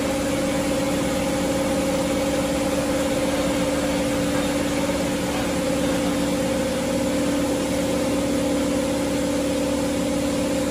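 Farm tractor's diesel engine running at a steady pitch as the tractor drives in reverse.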